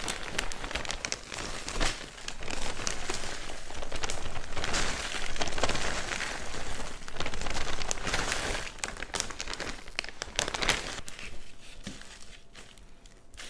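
Potting mix being poured from its plastic bag into a plastic nursery pot: the bag crinkles while the soil pours and rustles in with many small clicks. It eases off and grows quieter near the end.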